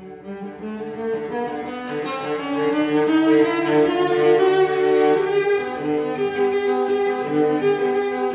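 Music played on bowed strings with the cello to the fore, in held notes and chords, swelling louder over the first three seconds and then staying full.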